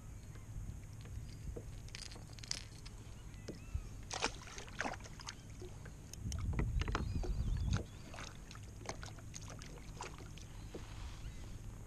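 Light clicks and knocks of fishing tackle and hands on a plastic sit-on-top kayak, scattered irregularly, with a louder low rumble for about a second and a half a little past the middle.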